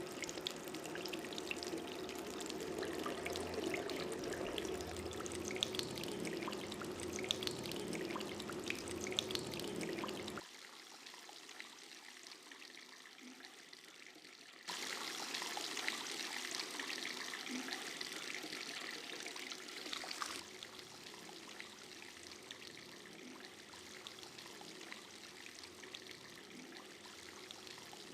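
Water running and trickling, in short recordings cut together: a steady flow with a low hum for the first ten seconds, a quieter stretch, then a brighter rushing pour for about six seconds before it drops back to a quieter trickle.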